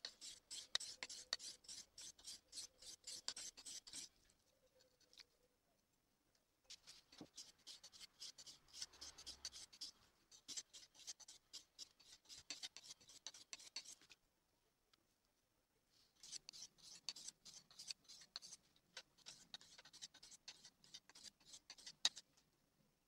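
Hand-forged knife blade stroked back and forth on wet sharpening waterstones, 1000 grit and then 3000 grit: a quick, even scraping of about four strokes a second, in runs of several seconds with short pauses between them. A sharp click sounds near the end.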